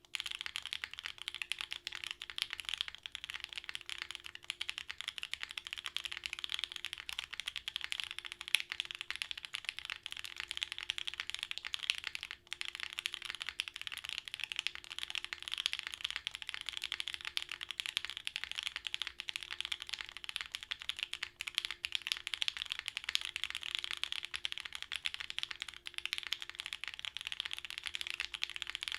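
Continuous typing on a gasket-mounted Kibou Harbour custom mechanical keyboard with a polycarbonate plate, lubed OPblack switches and GMK Striker keycaps: a steady stream of rapid keystroke clacks.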